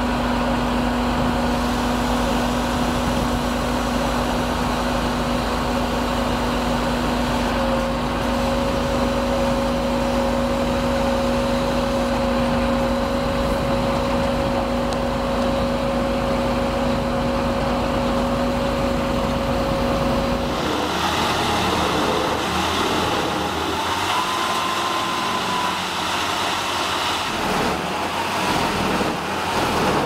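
Firewood processor running with a steady, even hum. About twenty seconds in, the sound changes abruptly to a noisier machine din with a wavering whine: a wood chipper working, chips pouring from its discharge chute.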